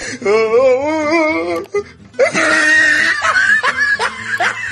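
A person laughing hard: first a long, wavering, high-pitched laugh, then after a brief break, breathy, wheezing laughter in quick repeated bursts.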